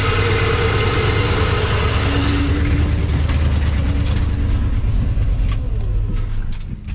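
1982 Ford F-150 engine running at idle while fluid is pushed through a newly fitted power steering pump to flush the system, with a whine over the engine that shifts lower in pitch a few seconds in. The sound drops in level near the end.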